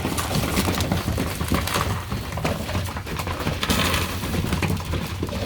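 Young racing pigeons pecking at seed in a feeder: a rapid, irregular clicking and clattering of beaks on grain.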